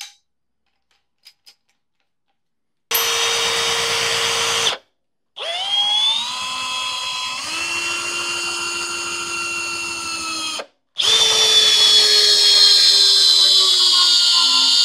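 Hercules cordless hammer drill driving a long screw into a wooden post through a socket adapter: the motor whines in three runs, each cut off abruptly. In the middle run the pitch climbs and then steps up, and in the last run it slowly sinks as the drill works under load.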